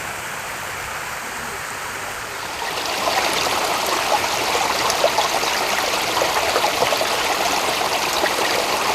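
Flowing creek water, a steady rush that gets louder about two and a half seconds in.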